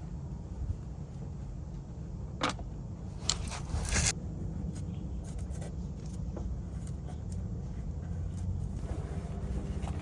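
Hand-work noises while fitting a new oil filter on a motorcycle: scattered light clicks, one sharper click, and a short scraping rustle about three to four seconds in, over a steady low hum.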